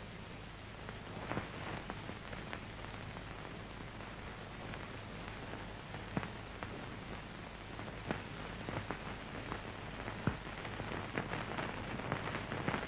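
Surface noise of an old optical film soundtrack: a steady hiss with a low hum and scattered crackles and pops, more of them near the end.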